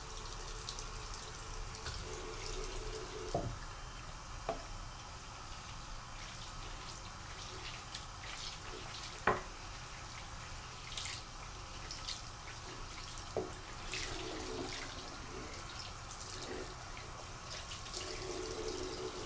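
Bathroom faucet running steadily into a sink, splashing over a clear plastic 3D-printer resin vat as it is rinsed out by hand, with a few short light knocks as the vat is handled in the basin.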